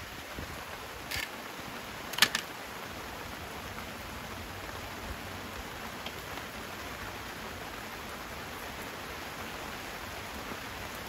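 Steady patter of rain around a small wood fire, with two sharp crackles from the burning wood, the louder one about two seconds in.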